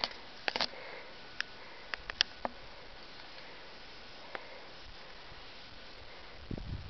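Steady faint hiss with a handful of sharp clicks in the first couple of seconds; near the end, low rumbling buffeting of wind on the microphone.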